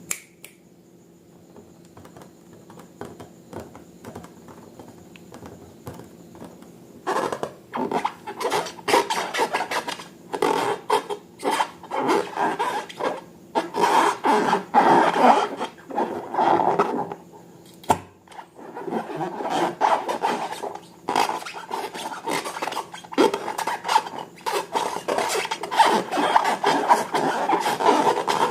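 Slime being squeezed and kneaded by hand: dense, irregular wet crackling and rubbing that starts about seven seconds in, with a brief pause about two-thirds of the way through.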